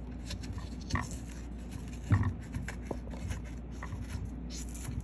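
Old foam surround of a Lexus GX470 Mark Levinson door speaker being peeled away from the cone and frame by hand, a run of small crackles and scrapes with a couple of louder handling knocks about one and two seconds in.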